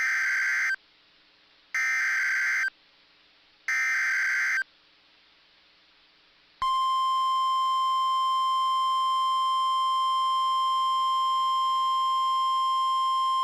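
Emergency Alert System SAME header: three identical bursts of screeching data tones, about a second each with a second of quiet between them, marking the start of a new weather alert. About six and a half seconds in, NOAA Weather Radio's 1050 Hz warning alarm tone starts as one steady, unbroken pure tone.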